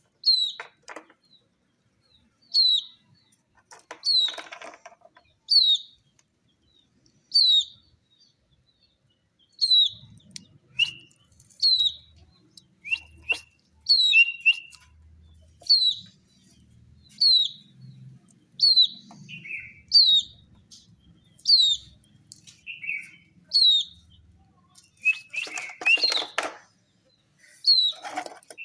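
A baby chick peeping over and over, each peep a short high note falling in pitch, about one every second and a half. A brief clatter near the end.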